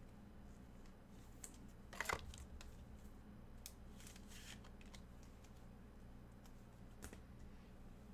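Faint rustling and light clicks from trading cards and their packaging being handled. The loudest is a brief rustle about two seconds in, over a low steady hum.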